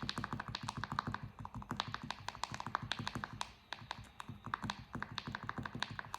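Clicky buttons on a fidget toy pressed rapidly over and over, a fast run of sharp clicks with a brief lull about two-thirds through.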